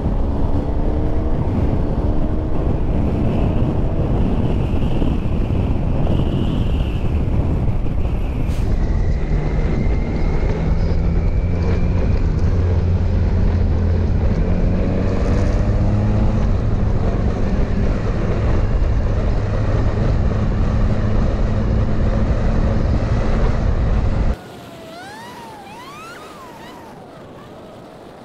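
Motorcycle riding at speed: the engine runs with its pitch rising and falling, under a steady rush of wind on the helmet-camera microphone. About four seconds before the end the sound drops suddenly to a much quieter level, with quick gliding tones.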